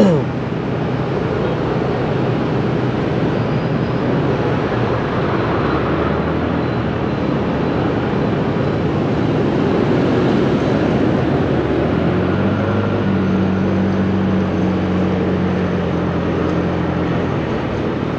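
Steady wind and street-traffic noise heard while riding a motorbike through the city, with a sharp knock at the very start. A steady engine drone joins about twelve seconds in and fades near the end.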